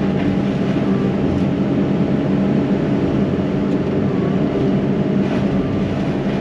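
Yanmar SV100 excavator's diesel engine running steadily at a constant speed, a loud, even drone with a steady hum.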